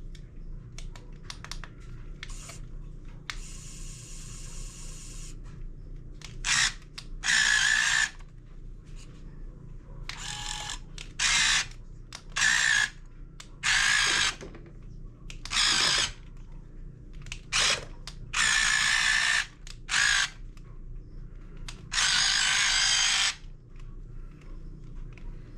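Small electric gear motors of a 1:16-scale RC Cat 272D skid steer loader running in short stop-start bursts, about a dozen, each from a fraction of a second to about a second and a half long, as the model is driven and worked.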